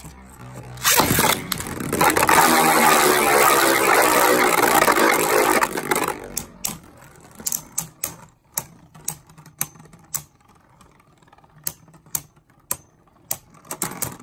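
Beyblade Burst spinning tops, Shelter Regulus and Xeno Xcalibur, battling in a plastic stadium: a sharp launch about a second in, then a loud whirring scrape of the tops spinning and grinding together for about four seconds, followed by sharp, irregular clacks as they knock into each other.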